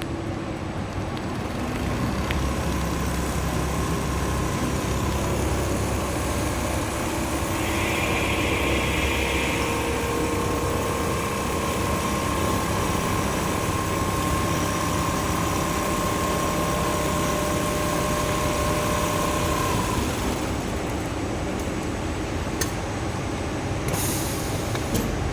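Automatic baffle-box duvet sewing machine running with a steady mechanical hum and a held whine that stops about three-quarters of the way through. A few short hisses and clicks follow near the end.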